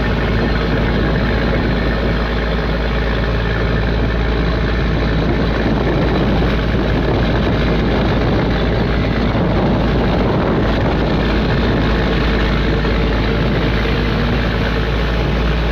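Fishing boat's engine running steadily, a constant low hum with no change in speed.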